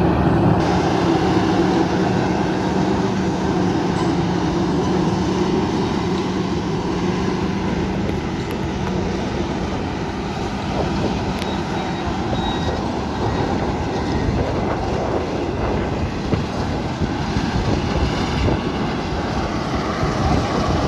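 Rice combine harvester running steadily with a dense mechanical rumble. A steady low hum under it fades out about eight seconds in.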